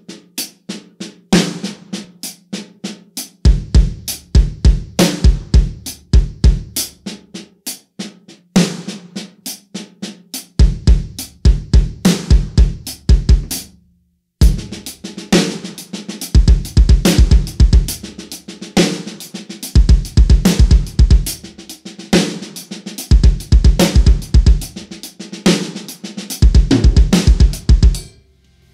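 Drum kit played alone: a snare-and-hi-hat groove with runs of rapid bass-drum strokes alternating with accented snare notes, a left-hand and right-foot speed exercise. The playing stops briefly about halfway through, then resumes denser.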